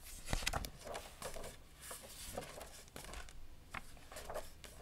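Pages of a hardcover picture book being turned and smoothed flat by hand: a scatter of quiet paper rustles and soft taps.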